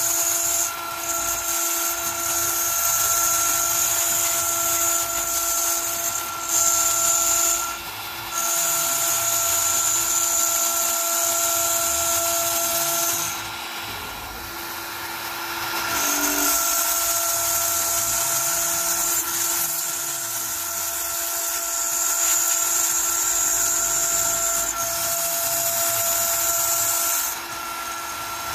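Onefinity CNC router's spindle running at about 18,000 rpm, with a single-flute upcut spiral O bit cutting 3/8-inch cast acrylic in a steady high whine. Its pitch and loudness shift briefly about halfway through. Underneath, the machine's stepper motors hum low, rising and falling in pitch as the gantry follows the curves.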